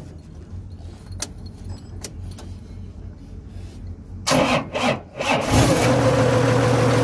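Toyota forklift's six-cylinder diesel engine starting on its freshly reinstalled and calibrated injection pump. It catches about four seconds in with a few loud coughs, then settles into a steady idle.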